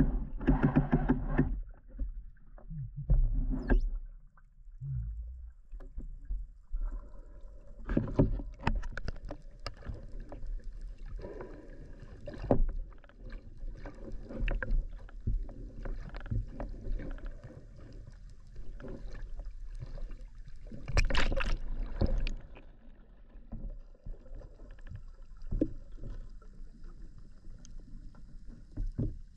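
Underwater sound picked up by an action camera mounted on a speargun during a freedive: a muffled rumble of water moving past the housing, with scattered knocks and clicks. A louder rush comes about eight seconds in and again about twenty-one seconds in.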